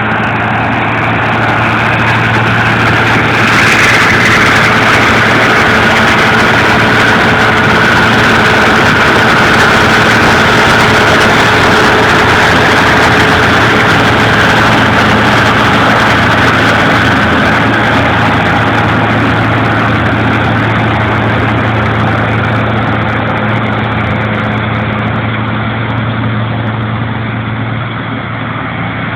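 Tractor engine running steadily while baling hay, with a steady low hum and dense mechanical noise from the machinery. It grows louder a few seconds in and eases off again near the end.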